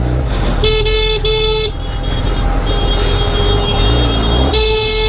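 Vehicle horn honking in heavy traffic: two short blasts, a longer held blast in the middle, then two more short blasts near the end, over the steady low rumble of engines.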